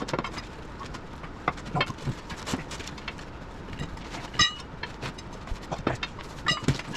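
Irregular metal knocks and clanks from work on a skid steer's rubber track, with one ringing clang of steel about four and a half seconds in.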